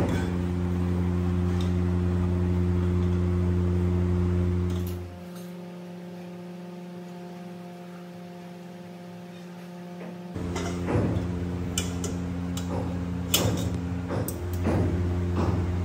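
A steady low hum, quieter and changed in pitch for about five seconds in the middle. In the last few seconds, metal pots, mugs and cups knock and clink against one another while milk tea is poured.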